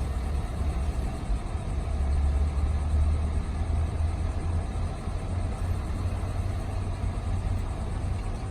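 Steady low rumble with a faint hiss above it, with no distinct events.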